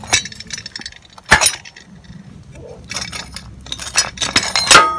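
Metal parts and tools clinking and knocking as they are handled, with a sharp knock about a second in and a run of clanks near the end, the last one ringing briefly.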